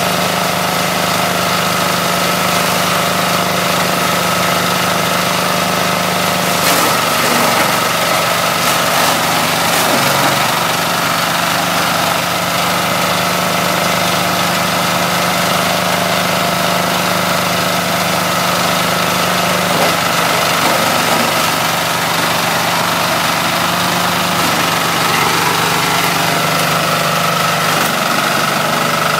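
Coconut-fibre shredder running steadily on its small single-cylinder engine, with a constant engine note and a steady high whine. The engine note wavers briefly about seven to ten seconds in.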